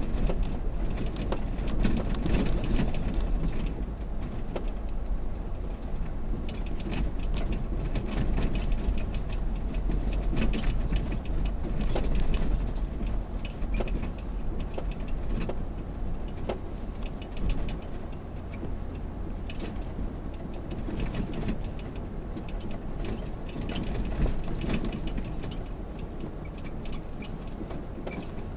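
Cabin noise of a Lexus GX460 driving over beach sand: a steady low rumble of engine and tyres, with light rattles and ticks scattered throughout.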